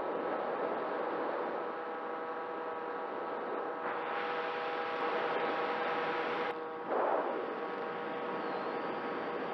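Radio-controlled model plane's motor and propeller running at a steady pitch, heard from a camera on the plane over a rushing of wind. The rushing changes abruptly about four seconds in and again about six and a half seconds in.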